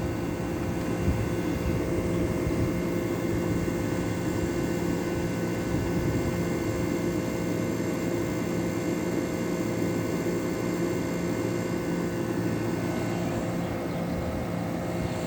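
Vintage Crossley (Emerson-built) 5000 BTU window air conditioner running: a steady rush of fan air over a constant hum. The owner says its fan is off balance, which makes the unit shake.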